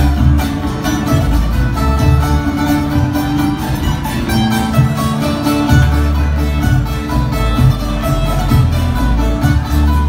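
Live ceilidh band playing an instrumental dance tune with a steady beat: acoustic guitars and banjo over a bass line, with a bodhrán.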